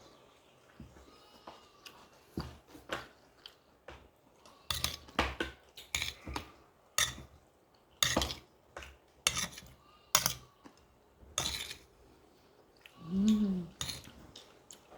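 Metal cutlery clinking and scraping against a plate in irregular sharp clicks and knocks while someone eats. A short hummed 'mm' of a voice sounds near the end.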